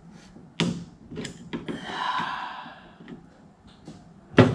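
Clicks and knocks of small metal parts as a retaining clip is worked loose from the wiper linkage where it joins the wiper motor, with a breathy rush of noise in the middle and a sharp knock near the end.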